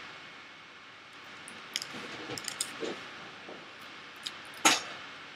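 Aluminium foil wraps on fingertips crinkling as they are squeezed and twisted, a scatter of small sharp crackles with one louder crunch near the end.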